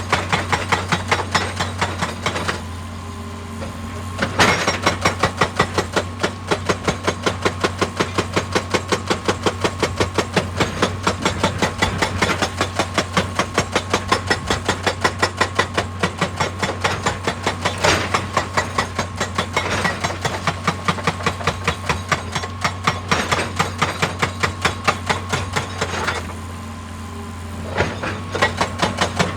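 Excavator-mounted hydraulic rock breaker hammering rock in rapid, even blows, several a second, over the excavator's steady engine hum. The hammering pauses twice for about two seconds, about two and a half seconds in and again near the end, leaving only the engine running.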